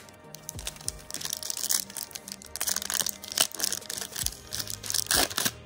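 Foil wrapper of a Topps Chrome Update baseball card pack crinkling and tearing as it is ripped open by hand. The dense crackle starts about a second in, over background music.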